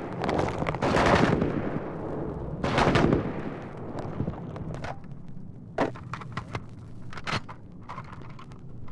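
Battle sound effects: several heavy explosions, each dying away over about half a second, in the first three seconds, then scattered sharp gunshots, some in quick succession, from about six seconds in.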